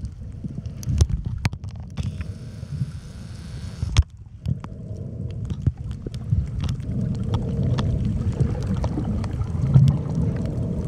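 Muffled underwater noise around a camera held just below the surface on a snorkel: low, uneven sloshing of moving water with scattered sharp clicks and crackles. A thinner hiss replaces the low sound for about two seconds, starting two seconds in.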